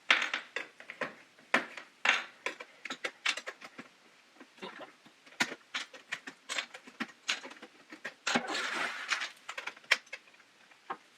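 Keycaps of a KeyTronic E3601 keyboard being pried off with a butter knife: a run of irregular sharp plastic clicks and clacks as caps pop loose and are dropped. About eight seconds in there is a longer rustling scrape of about a second.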